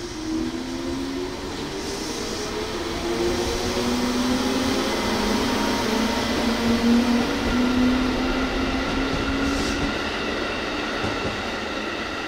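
JR Central 311 series electric multiple unit going by. Its inverter-driven traction motors whine in stepping, gliding tones over the rumble of wheels on rail, loudest about two-thirds of the way through.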